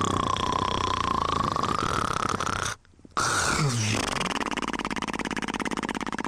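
Snoring: a fast fluttering rattle with a wavering whistle over it. It breaks off abruptly for a moment about three seconds in, then resumes with a falling note.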